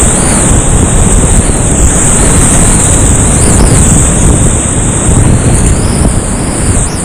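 Loud, steady rush of a steep creek's whitewater running high, close to the microphone, with a constant high hiss over it.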